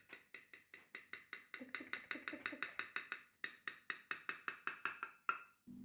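Knife sawing quickly back and forth through a layered pancake cake in a glass baking dish: a rapid train of short scraping taps, about six a second, with two brief pauses.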